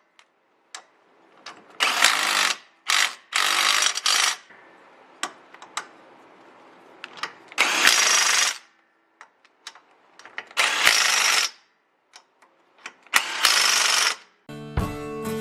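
Power tool running in about five short bursts of roughly a second each, with clicks and ratcheting in between, as it works on the van's shock-absorber bolts. Guitar music comes in near the end.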